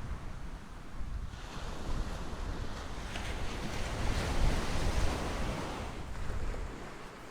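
Sea waves breaking and washing up the beach, swelling to a peak about halfway through and easing off near the end, with wind rumbling on the microphone.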